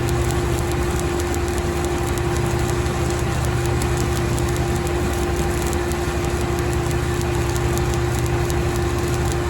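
Stick (SMAW) welding arc crackling steadily as a weld pass is run on the steel bucket, over the steady hum of a running engine.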